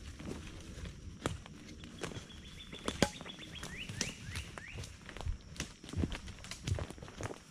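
Footsteps at an irregular pace, each a short sharp tread. About two seconds in, a bird calls a quick run of short notes, then several short upward-sweeping notes.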